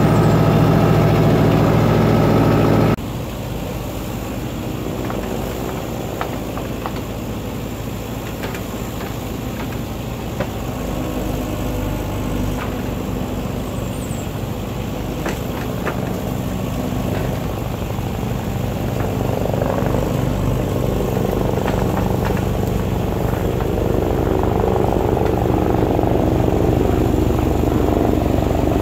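Backhoe's diesel engine running steadily. About three seconds in, the sound drops abruptly to a lower level, then builds gradually again toward the end, with a few light knocks in between.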